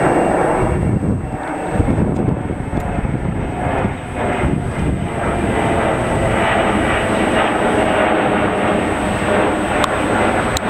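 Twin-engine regional jet with tail-mounted turbofans passing low overhead, a steady loud rumble of engine noise. A whining tone comes in over the rumble about halfway through.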